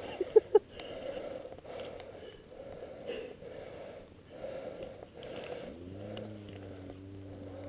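Two short, sharp squeaks just after the start, then faint rustling; about six seconds in an engine starts up, rising briefly in pitch, and settles into a steady hum.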